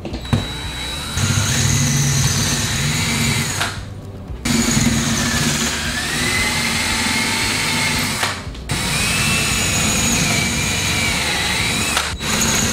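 Cordless drill turning a Bosch diamond-tipped bit into stone tile at low speed with steady pressure, boring screw holes. The grinding has a whine that wavers in pitch, with short stops about four and eight seconds in and again near the end.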